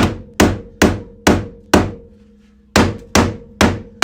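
Hammer blows on the dented sheet-steel quarter panel of a 2010 VW Jetta, about two a second: five, a pause of about a second, then four more, with the metal ringing under them. This is the pounding done while the panel is pushed out from inside, to work the dent back out.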